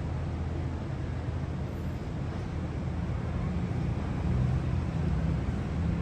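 Steady low rumble of a moving vehicle, with wind buffeting the microphone; it grows a little louder about four seconds in.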